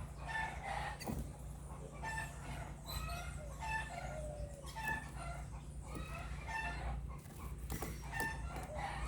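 Birds calling over and over in short pitched notes, about one or two a second, over a low steady hum.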